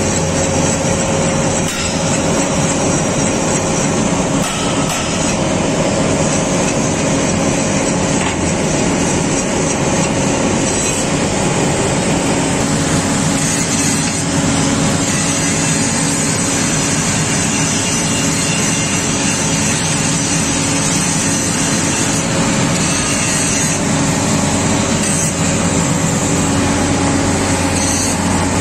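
Engine of a mobile rail flash-butt welding plant running steadily: a continuous drone with a low hum.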